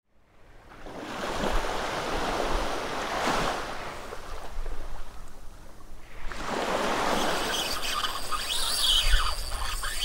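Small sea waves washing onto the shore in two swells of surf. Near the end, high sliding tones join in.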